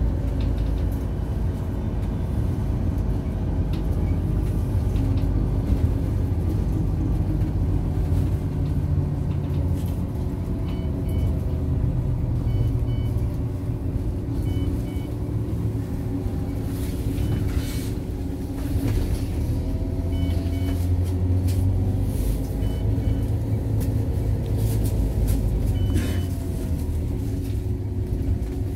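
MAN NG 313 Lion's City articulated city bus running, heard from inside the passenger cabin: a steady low engine and road rumble, with a drivetrain whine that rises and falls in pitch in the second half.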